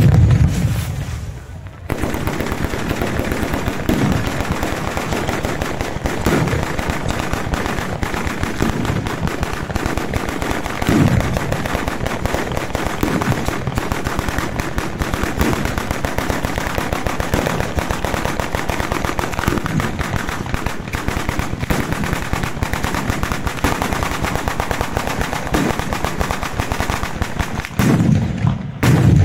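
Ground-level firework battery in the Bolognese style (batteria alla bolognese) firing a long, dense run of rapid firecracker cracks, like machine-gun fire. It opens with a heavy bang, and another heavy bang comes near the end.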